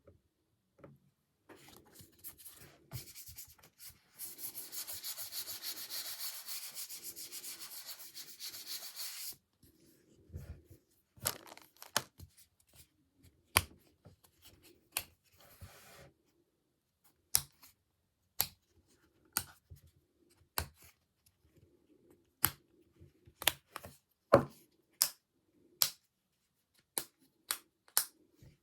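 Hands unpacking a small item: a steady ripping or peeling noise lasting about five seconds, then a run of sharp clicks and taps, about one a second.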